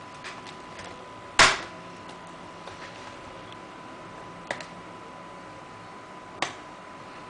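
Sharp clicks and knocks of small tools and plastic parts being handled while a netbook is taken apart: one loud knock about a second and a half in, two lighter ones later, and faint ticks between.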